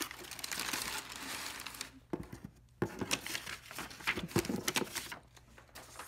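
Brown kraft packing paper crumpling and crinkling as it is pulled out of a cardboard shipping box: steady rustling for about two seconds, then a run of shorter rustles and light knocks that dies down near the end.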